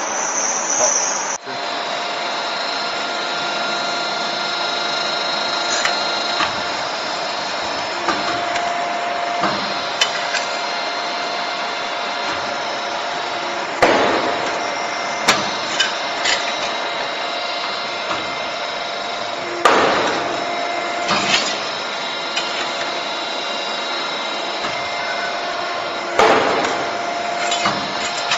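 30-ton CNC busbar machine running with a steady hum, punching copper busbar: three loud sharp punch strokes about six seconds apart in the second half, with lighter clicks and clanks between them as the bar is fed and positioned.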